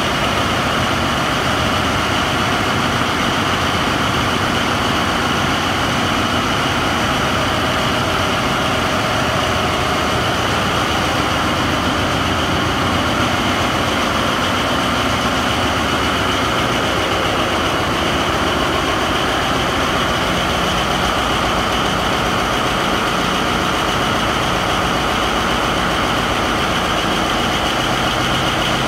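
Loud, steady din of the diesel machinery running in a tugboat's engine room, an even drone with a steady whine on top that does not change.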